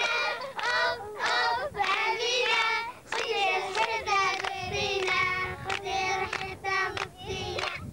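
A group of children singing a song together in unison, phrase after phrase with short breaths between.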